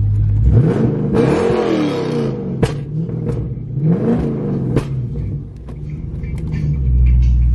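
Car engine idling, then revved hard twice, each rev rising and falling and ending in a sharp pop from the exhaust, with smaller crackles before it settles back to idle near the end.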